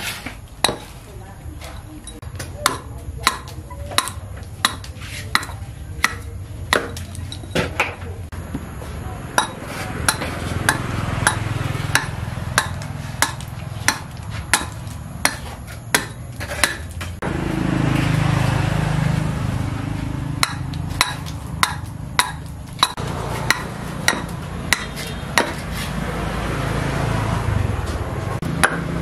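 Hatchet rough-hewing an upright wooden log: sharp chopping blows, about three every two seconds, each a short hack into the wood, stopping near the end. A low rumble runs under the chopping from about halfway through.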